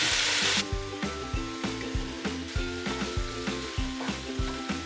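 Chicken pieces sizzling in hot oil in a frying pan. About half a second in, the sizzle cuts out and gives way to background music with a steady beat of about three a second.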